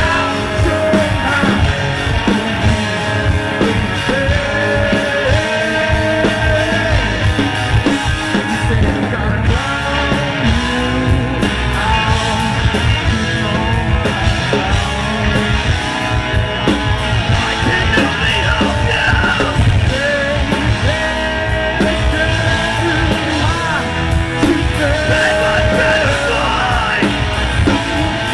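Live rock band playing: electric guitar, bass guitar and drums, with a lead vocal sung over them.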